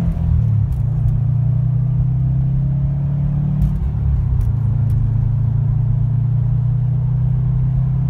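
2013 Subaru WRX STI's turbocharged 2.5-litre flat-four engine running steadily under way, heard from inside the cabin as a low, even drone with its boxer rumble.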